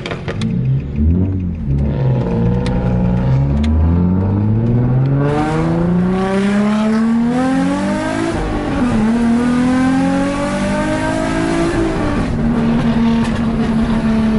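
Nissan 350Z V6 accelerating hard: the revs climb, drop at a gear shift about eight seconds in, climb again, then settle to a steady drone. Sharp exhaust pops crackle during the first few seconds.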